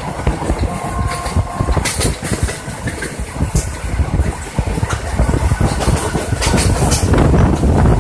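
Passenger train running: a steady rumble of the carriage with irregular clatter of wheels on the track, getting louder in the second half.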